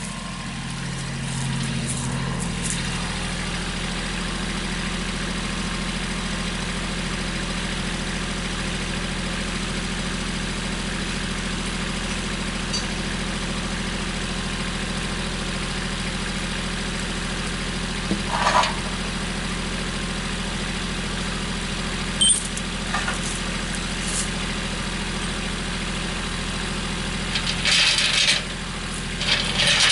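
An engine idling steadily at an even pitch, with a few short clanks or squeaks breaking in at intervals, several close together near the end.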